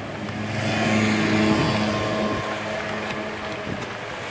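A motor vehicle's engine running close by in the street, a low steady hum that swells over the first two seconds or so and then eases off, over a steady hiss.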